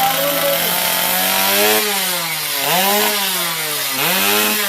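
Small engine of a miniature drag motorcycle revving high. The pitch holds steady at first, then twice drops sharply and climbs back as the throttle is eased and opened again.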